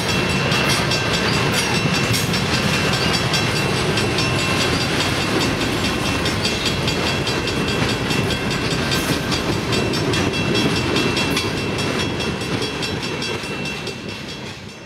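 Freight cars of a passing train rolling by at trackside: a steady rumble with wheel clatter and clicks over the rail joints and a thin steady high tone. The sound fades over the last couple of seconds as the tail of the train passes.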